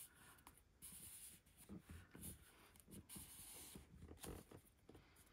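Faint rustling and sliding of cardstock and patterned paper being handled, in several short soft bursts.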